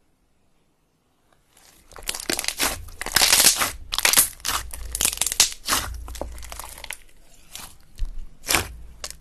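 Thick cream-coloured slime with small beads mixed in, pressed and squeezed by hand, crackling and crunching in quick irregular bursts. The sound starts after about a second and a half of near silence, is loudest in the middle, and has one more sharp crackle near the end.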